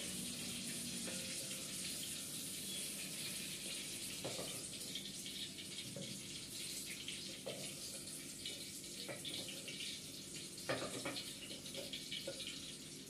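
Green chillies sizzling in hot oil in a clay pan, a steady hiss, with a few light knocks and scrapes of a spatula stirring them.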